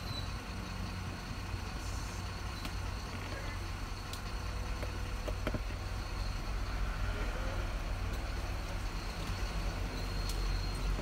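Steady low background rumble with a few faint, sharp little clicks from the small screwdriver and phone frame being handled.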